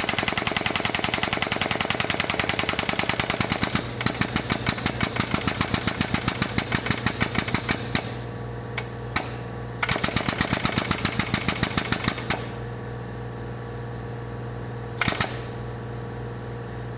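Air-over-hydraulic jack's air-driven pump chattering in fast, even pulses as it drives a tube bender's ram, bending an annealed aluminum tube. It runs for about eight seconds, stops, then runs again for about two seconds, with short blips between. A steady low hum continues underneath.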